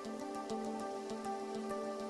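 Gentle background music: soft sustained pitched notes changing every half second or so.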